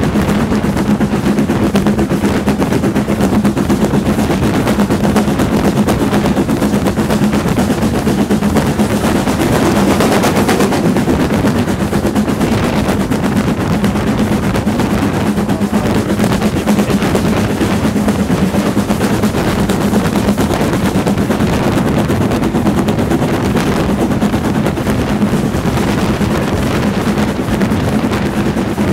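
LMS Black Five two-cylinder 4-6-0 steam locomotive hauling a train, its exhaust beating in a fast, steady rhythm over the running noise of the carriage, heard from a carriage window just behind the engine.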